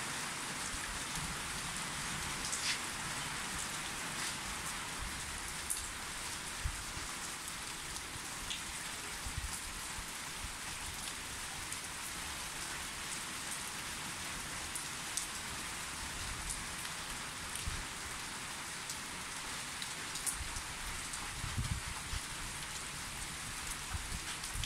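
Steady rain falling, an even hiss with occasional sharp ticks scattered through it.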